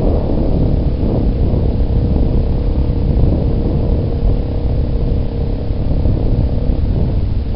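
Yamaha Big Bear ATV's single-cylinder four-stroke engine running at a steady pace while the quad rides along a dirt trail, with a constant low engine note.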